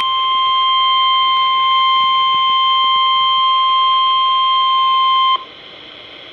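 NOAA Weather Radio's 1050 Hz warning alarm tone: one steady, high, pure tone from the radio's speaker, signalling that a warning is about to be broadcast. It cuts off suddenly about five seconds in, leaving a faint hiss.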